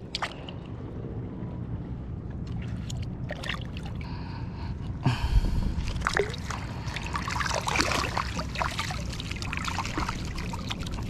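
Calm seawater sloshing and trickling around someone standing in it, with small irregular splashes that grow louder and busier about five seconds in.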